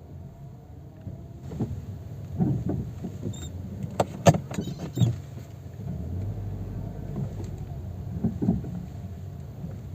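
Renault Clio reversing slowly with its engine running low, while the front suspension knocks in a quick series of sharp clunks in the middle and again near the end. The knocking is play in the front left suspension, which the mechanic suspects comes from a blown shock absorber that has leaked its oil.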